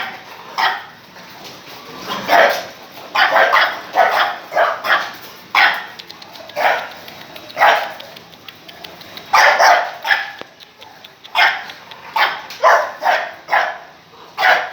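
A dog barking repeatedly: about twenty short barks in irregular runs, some coming in quick strings of three or four.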